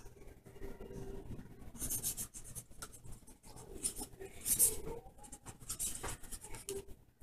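Felt-tip marker scratching across paper in quick, irregular strokes as a signature is written.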